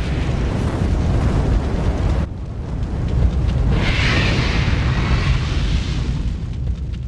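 Cinematic intro sound effect: a continuous deep rumble, with a hissing rush that swells about four seconds in.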